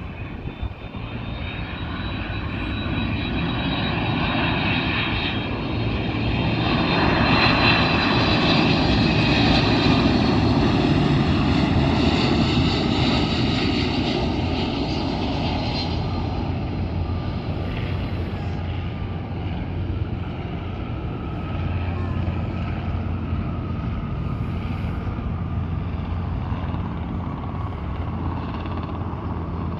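Jet engines of a UPS Boeing 767-300 freighter on landing. The sound builds to its loudest about eight to thirteen seconds in as the plane passes, with a whine that slowly drops in pitch, then eases to a steady rumble as the plane rolls out down the runway.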